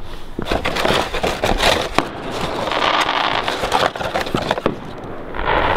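Fireworks crackling with many quick sharp pops, and hissing swells in the middle and again near the end.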